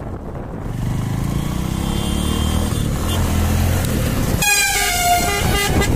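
Wind and road rumble on a moving motorcycle, then about four seconds in a horn from oncoming highway traffic sounds loud and long, held for about two seconds.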